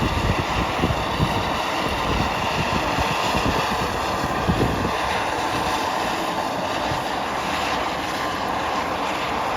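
Strong wind across the microphone: a steady rushing noise with irregular low buffeting rumbles.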